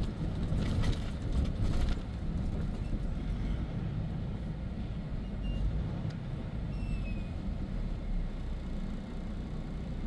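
Steady low rumble of a truck's engine and road noise, heard from inside the cab while driving.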